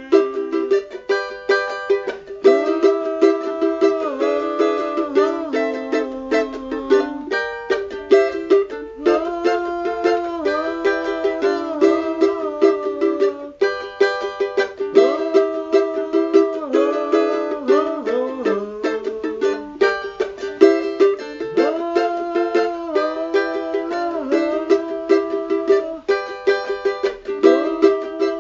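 Cavaquinho being played solo: a continuous run of quickly picked and strummed notes and chords, some notes sliding in pitch.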